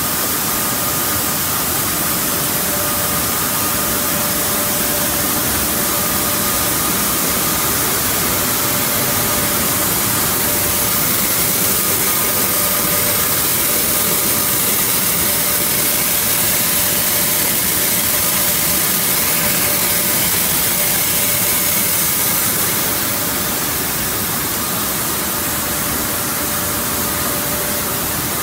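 Water mist rice polisher and the rice mill machinery around it running: a loud, steady hiss of machine noise with a faint steady whine running through it.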